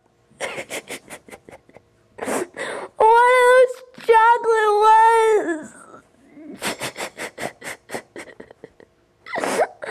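A boy sobbing and wailing: short gasping sobs, then two long wavering wails in the middle, then more gasping sobs.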